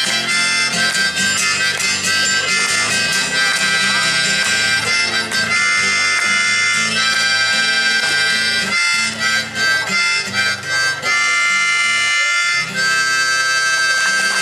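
Harmonica playing a sustained melodic line over strummed guitar chords: the closing instrumental of a live acoustic pop song.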